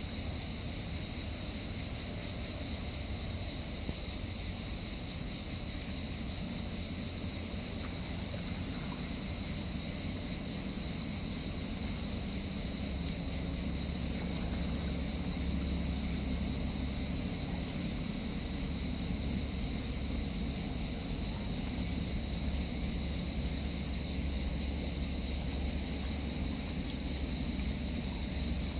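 Cicadas singing in a steady, unbroken high chorus, with the low rumble of a large ferry's engines underneath that grows louder about halfway through.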